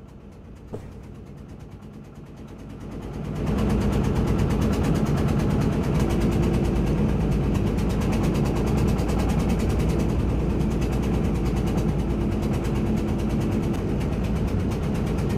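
An engine running steadily with a low, rapidly pulsing drone. It is faint at first and becomes loud and steady about three and a half seconds in.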